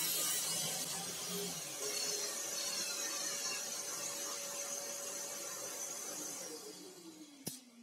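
Table saw running with its blade spinning free, then switched off about six seconds in: the motor and blade wind down with a steadily falling whine as the noise fades. A single sharp click near the end.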